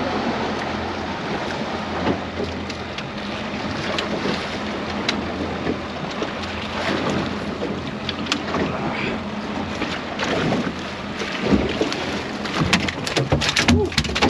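Wind buffeting the microphone and sea water washing around a small open fishing boat, with a steady low hum underneath. A few sharp knocks come near the end.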